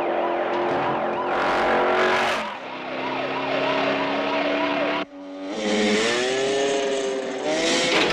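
Police car siren wailing in quick repeated rises and falls over racing vehicle engines. An abrupt cut about five seconds in leads to engine notes that rise and fall in pitch as a motorcycle is chased.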